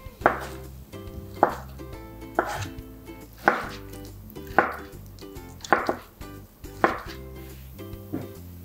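Kitchen knife cutting through stacked ham slices onto a wooden cutting board, about seven sharp knocks roughly one a second, over light background music.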